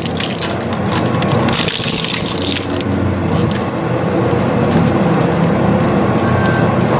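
Industrial shredder's rotating steel cutter discs running with a steady motor hum, crunching and cracking plastic toys as they are drawn between the blades.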